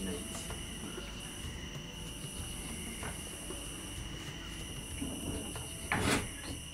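Night insects chirping steadily in high, continuous trills, with a short, louder noise about six seconds in.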